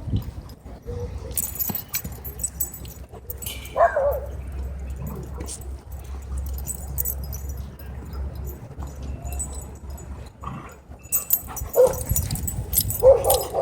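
Dogs yipping and whining: a single falling yelp about four seconds in, then a few short yips and barks near the end.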